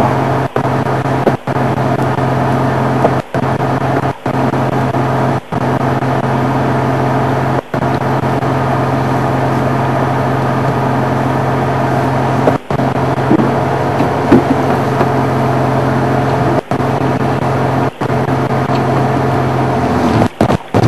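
Safari vehicle's engine idling steadily. The sound cuts out for a split second about ten times.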